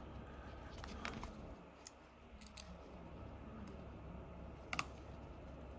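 Faint scattered clicks and taps as the iPhone XR's parts are pressed back together, the sharpest click a little under five seconds in, over a low steady hum.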